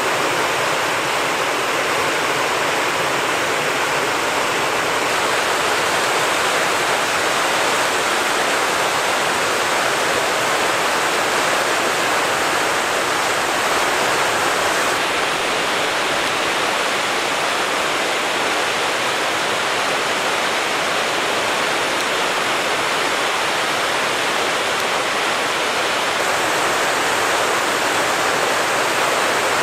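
Rushing water from a waterfall or fast mountain stream: a steady, even rush with no break.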